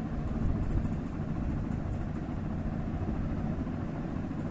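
A steady low rumble in the background, with faint light clicks of a spoon stirring thick gram-flour batter in a bowl during the first couple of seconds.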